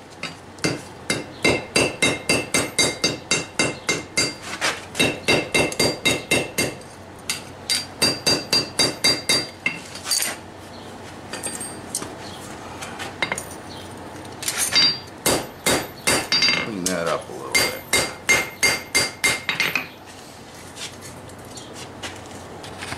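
Hand hammer driving a drift through a punched hole in hot steel on an anvil, enlarging the hole. The blows come in runs of about three a second, each with a short metallic ring, with pauses between the runs.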